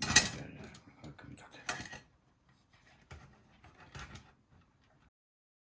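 Sharp mechanical knock at the start, then scattered clicks and light knocks from a TEAC CD-cassette deck's CD tray mechanism, working again on a freshly replaced rubber drive belt. The sound cuts off about five seconds in.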